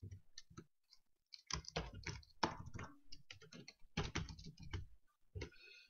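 Typing on a computer keyboard: faint key clicks in several short, irregular runs with brief pauses between them.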